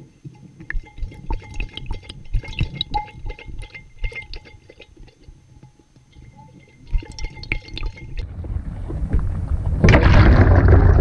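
Water gurgling and sloshing around a dog-mounted GoPro in its waterproof housing as the dog puts its head in the water, muffled, with many small knocks against the case. A louder rushing, splashing noise builds from about eight seconds in and is loudest near the end.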